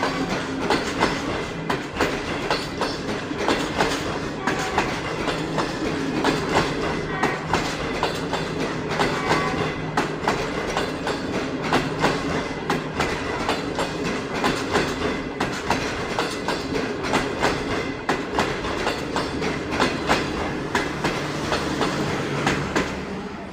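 Train wheels running on the rails: a steady rumble with a fast clickety-clack of many sharp clicks as the wheels pass over rail joints.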